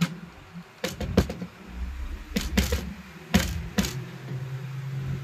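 A hand cutter's parts being handled and pushed into its housing during reassembly: a series of sharp clicks and knocks, about six in the first four seconds, with handling rumble between them.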